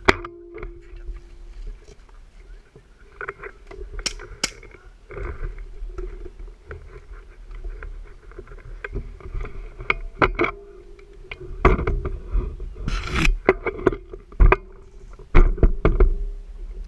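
Handling noise from a camera mounted on an airsoft sniper rifle as it is carried about: irregular knocks, clicks and rubbing, louder near the end, over a low rumble and a faint steady hum that comes and goes.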